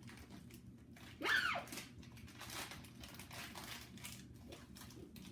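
Wrapper crinkling and tearing as something is unwrapped, with a short vocal squeal about a second in.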